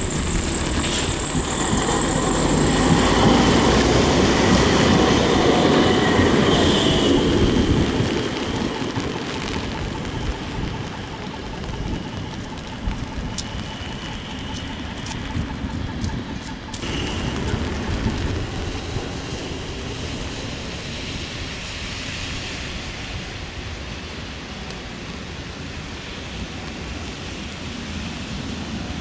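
Tram running along the track: a loud rumble for about the first eight seconds, with a high hiss near the start, that then dies down to a quieter, steady rumble with occasional clicks.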